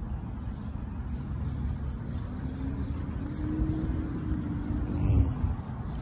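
Motor vehicle engine rumbling low and steadily, with a tone that rises and then falls away over a few seconds, loudest about five seconds in.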